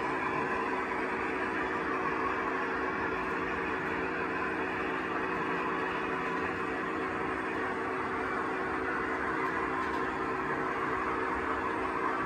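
OO gauge model freight train of tank wagons running past on the track, its wheels giving a steady rolling rush with a steady hum underneath.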